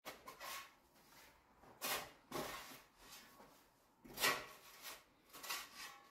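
Snow shovel scraping and pushing snow, about five separate strokes at uneven intervals.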